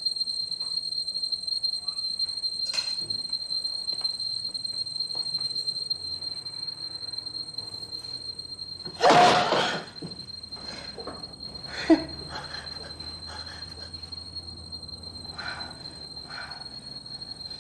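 Scattered small knocks, then a loud scrape lasting under a second about nine seconds in and a single sharp knock near twelve seconds, over a steady high-pitched whine.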